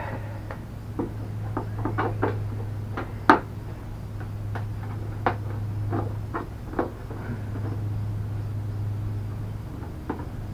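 Scattered light clicks and knocks of plastic body panels and fasteners being handled on a mobility scooter's front, the sharpest about three seconds in, over a steady low hum.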